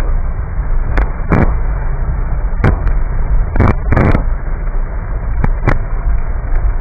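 Steady low rumble of a car's cabin while driving on a wet road, broken by about ten irregular sharp taps, some in quick pairs.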